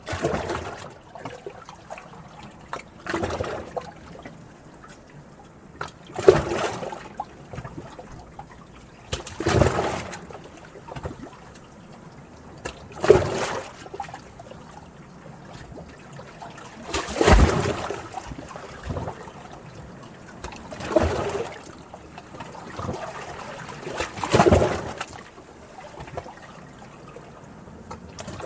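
Sea water washing in and out in small waves, a louder surge every three to four seconds over a steady trickling wash.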